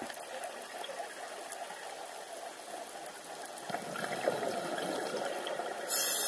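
Underwater sound of a scuba diver's regulator breathing: a steady muffled bubbling hiss that grows louder after the middle, then a sudden loud high hiss of a breath drawn through the regulator near the end.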